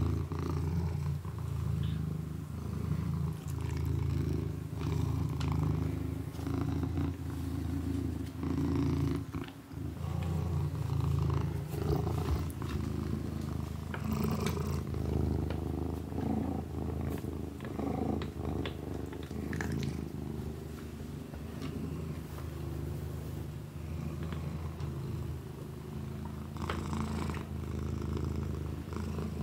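Domestic cat purring steadily, the low rumble swelling and easing with its breaths, with a brief break about a third of the way through.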